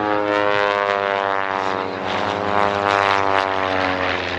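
Pitts Special aerobatic biplane's piston engine and propeller droning loudly in flight, the pitch sliding lower and shifting as it manoeuvres.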